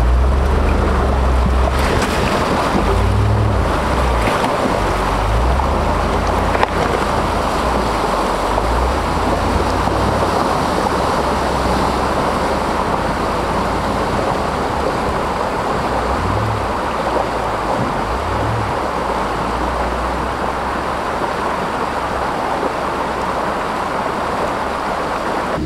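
Steady rushing, water-like noise with wind buffeting the microphone in uneven low rumbles.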